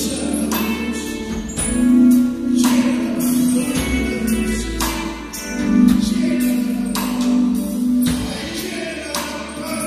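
Live worship band music: a drum kit keeping a steady beat with cymbal and snare hits over sustained Yamaha electronic keyboard chords.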